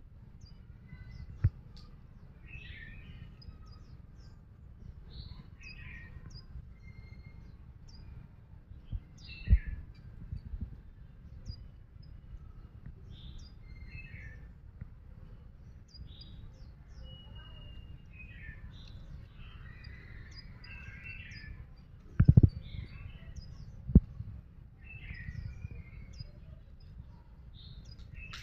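White-eye chirping in short, high, scattered calls. Under them is a steady low rumble, and a few dull thumps come through, the loudest about 22 seconds in.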